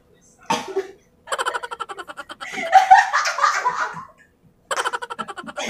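Two people laughing hard in rapid pulses, loudest about three seconds in, breaking off briefly and starting again near the end.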